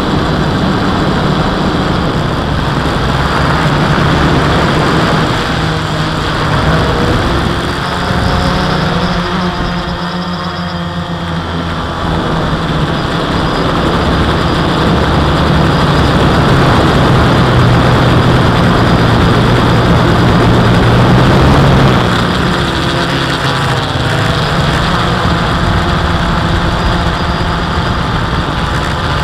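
A quadcopter's electric motors and propellers running, heard from a camera mounted on the craft, over a steady rush of wind noise. The low hum shifts in pitch as the motor speed changes, dipping briefly about ten seconds in and sitting lower for a few seconds around twenty seconds in.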